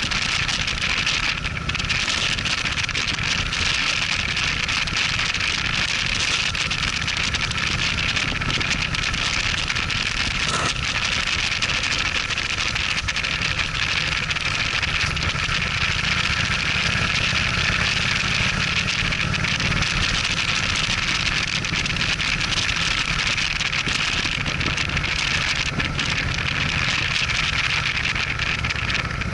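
Cruiser motorcycle riding at a steady road speed: a constant rush of wind over the microphone, with the engine's low rumble running underneath.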